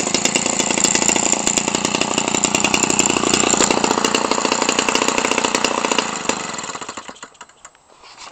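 Homelite 25cc two-stroke weed-trimmer engine, converted for a giant-scale RC airplane, running steadily at speed with its propeller on. About six seconds in it drops off and winds down to a stop.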